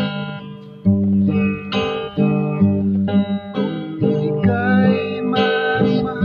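Background music led by plucked guitar, with a new note or chord every half second or so over low bass notes.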